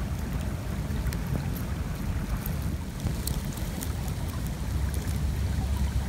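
Water flowing and trickling with small scattered ticks, under a steady low rumble of wind buffeting the microphone.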